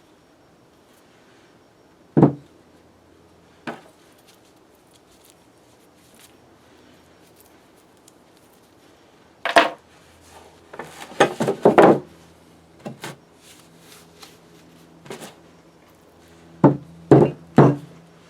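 Heavy cast-iron vise parts being handled and set down on a workbench: scattered knocks and thunks, single ones at first and clusters of several near the middle and the end, with a faint steady hum between them.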